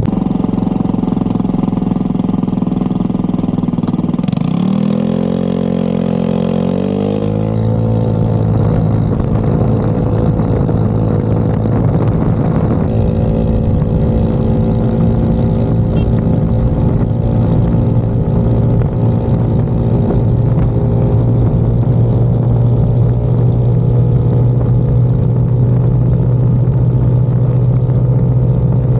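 Ride-along sound of a Honda Ruckus-style scooter engine at wide-open throttle. It pulls away from a stop with the revs climbing quickly for a few seconds, then the pitch holds at a steady high drone while the belt drive carries the speed up to about 50 mph, with wind noise. The engine pulls cleanly at full throttle, running a rich 12:1 air-fuel ratio on its new electric fuel pump.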